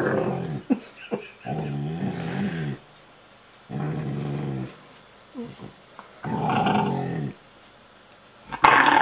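Rottweiler grumbling and growl-moaning in long drawn-out bouts, about a second each with short pauses between, some bending up and down in pitch: the dog's contented 'talking' while being cuddled.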